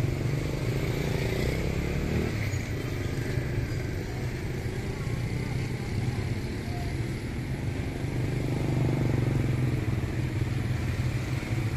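Steady low engine hum under general outdoor street noise, swelling slightly near the end.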